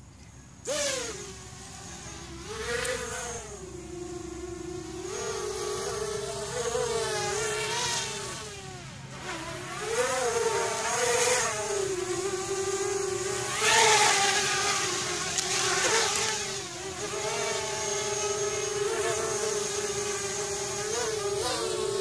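Small quadcopter's electric motors and propellers spinning up and flying, a whining buzz whose pitch rises and falls with the throttle, with a few brief louder surges.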